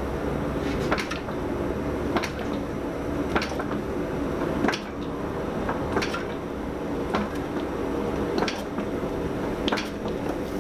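Hammer blows on hot mild steel on the anvil, drawing out the bar lengthwise, struck at an even pace of a little under one a second, over the steady running of the gas forge.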